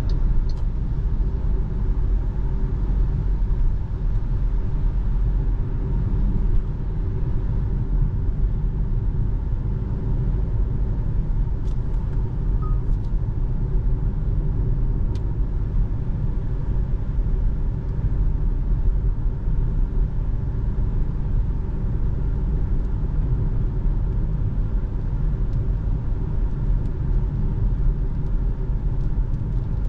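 Cabin noise of a 2025 MG HS driving on a wet road at about 55–60 km/h: a steady low rumble of tyres and running gear heard from inside the car. A few faint ticks come near the middle.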